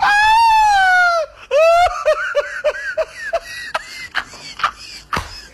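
A high-pitched voice: one long squeal sliding downward, then a quick run of short high yelps like giggling, with sharp clicks in between.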